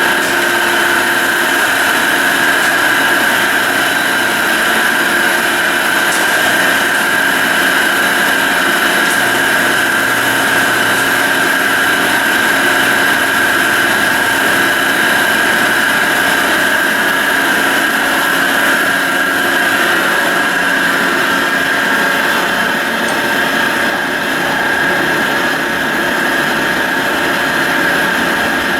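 Carlton Model 4A radial arm drill press running under power: a steady machine hum with a constant high-pitched gear whine.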